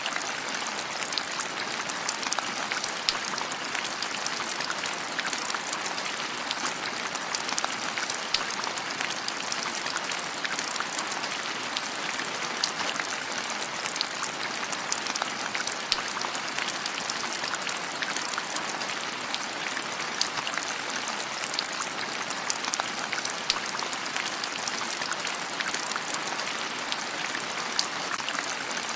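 Steady rain falling, a dense even hiss with many fine individual drop patters.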